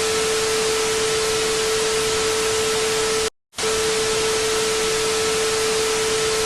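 Electronic sound effect: a steady mid-pitched tone over loud static hiss. It cuts out briefly about three seconds in, then starts again unchanged, like a short clip played on a loop.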